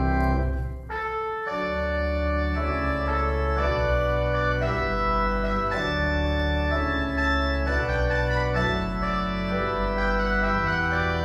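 Church organ playing held chords over a sustained bass line, the chords changing every second or so, with a brief break about a second in.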